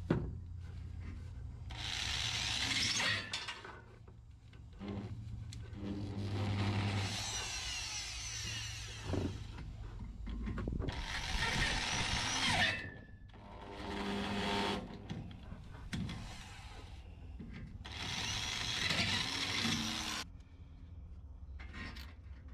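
Corded electric drill boring into the side wall of a camper van's habitation box, run in five bursts of one to three seconds with short pauses between.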